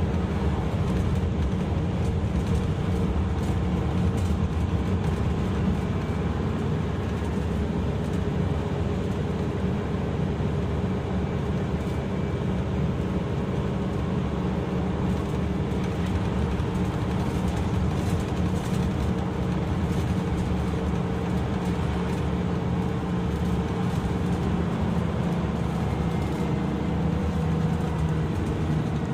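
Mitsubishi Fuso Aerostar city bus running: a steady engine and drivetrain drone mixed with road noise.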